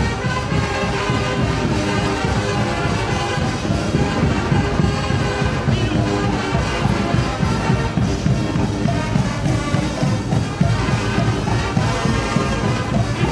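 Carnival street band music, brass over drums, playing steadily.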